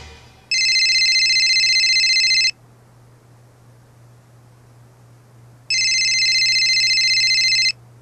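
Telephone ringing twice, each ring a two-second fluttering electronic trill.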